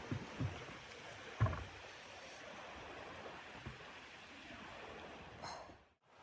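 Steady rushing of blizzard wind with a few soft low thumps. The sound drops out abruptly about six seconds in.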